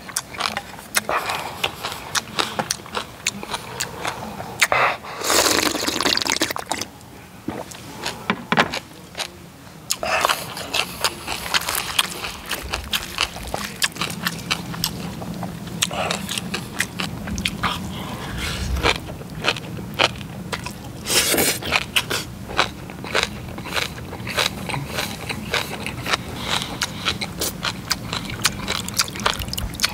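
Close-miked chewing and wet mouth sounds of someone eating a large mouthful of bibimbap, full of quick clicks and smacks. A wooden spoon scrapes and taps against the cast-iron cauldron lid serving as the plate.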